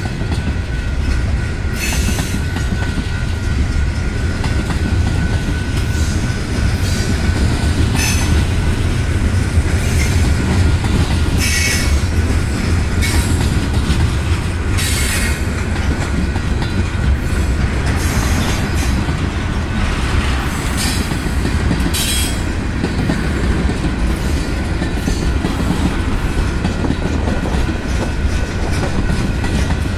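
Freight train of tank cars and covered hoppers rolling past at close range: a steady low rumble of wheels on rail with clickety-clack. Several brief high-pitched wheel squeals stand out over it.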